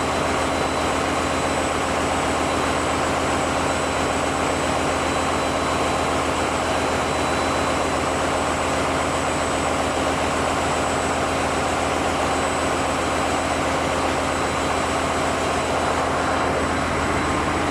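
Steady, loud engine-room din of running diesel generators: a constant low drone with a thin high-pitched whine over it, unchanging throughout.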